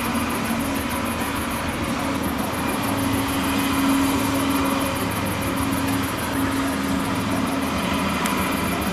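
Farm harvesting machinery's engine running steadily at a distance, with a fast, even high-pitched ticking over it.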